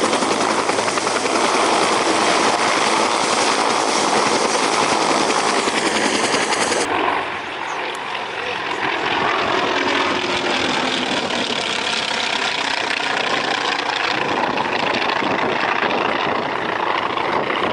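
Helicopter in flight: loud, steady rotor and engine noise, which turns less hissy all at once about seven seconds in and carries faint sliding tones for a few seconds after.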